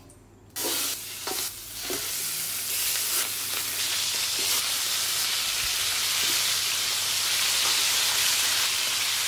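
Rooster thighs and drumsticks searing in hot olive oil in a pan, a steady loud sizzle that starts abruptly about half a second in. A few short knocks come in the first two seconds.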